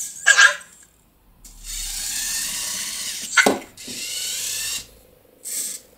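Cozmo toy robot's small motors whirring in spells as it drives and works its lift arm during cube stacking, with two sharp clacks, one just after the start and one about three and a half seconds in.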